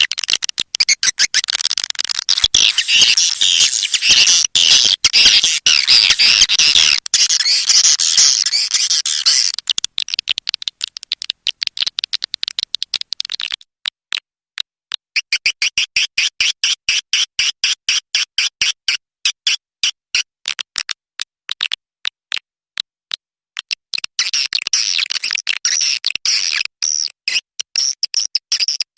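Swiftlet calls: rapid trains of short, high chirps and clicks. They are dense at first, thin out near the middle into an even, rhythmic series of chirps, and turn dense again near the end.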